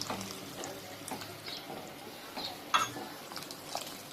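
Faint stirring and utensil clicks in a pan of curry as water is worked in, with one sharper clink a little under three seconds in.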